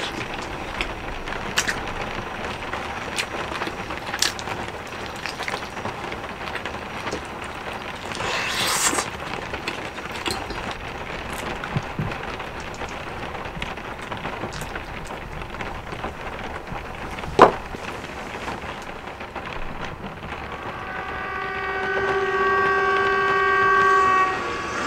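Steady rain falling on a caravan roof, with scattered light clicks and one sharp knock a little past the middle. Near the end a held chord of several steady tones swells up from the TV.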